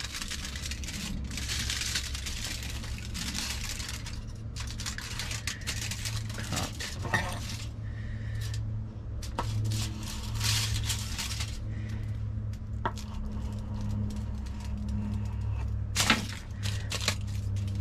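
Aluminium foil crinkling and rustling in irregular spurts as it is handled, folded and cut with a small knife, over a steady low hum.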